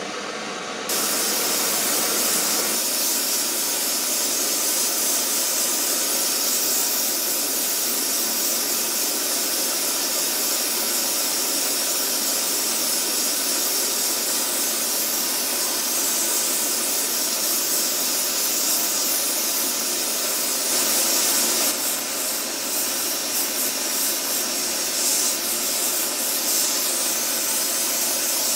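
Oxy-propane torch burning with a steady hiss alongside a propane preheat torch, heating the copper boiler's firebox stays for silver soldering. The hiss comes up sharply about a second in.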